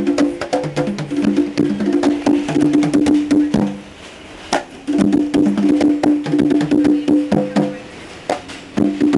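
Two street percussionists playing a fast rhythm of sharp clicks and short pitched drum tones. The playing stops briefly twice, about four seconds in and again near the end.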